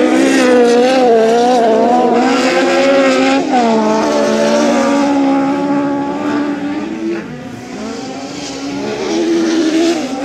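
Engines of lowered VW Beetle autocross cars racing on a dirt track, revving up and down as they are driven hard. The sound falls away about seven seconds in and rises again near the end.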